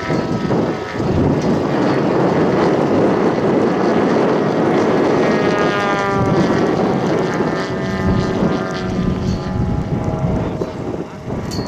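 Engine and propeller of a radio-controlled scale model Piper L-4 in flight, running steadily, its pitch dropping about halfway through as it passes by.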